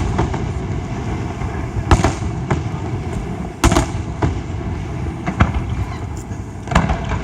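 Aerial fireworks shells bursting: about five sharp bangs spaced a second or so apart, with low rumbling between them.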